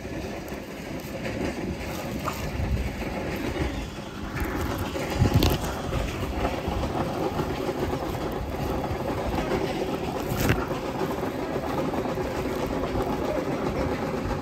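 Woven plastic sack rustling and crinkling as a hand unties its rope and rummages inside among the fish, with two sharper knocks about five and ten seconds in.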